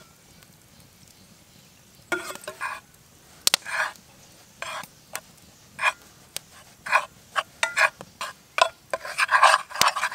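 Utensil scraping and stirring in a frying pan, mixing flour and water into a dough: irregular scraping strokes start about two seconds in and come faster and closer together near the end.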